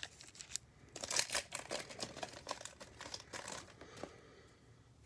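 Trading-card pack wrapper crinkling and tearing as it is ripped open by hand: a dense run of quick crackles that thins out near the end.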